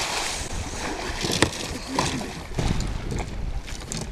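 Water splashing and sloshing at the side of a boat as a large bass thrashes at the surface and a man reaches into the water to grab it, with wind on the microphone. A sharp knock comes about a second and a half in.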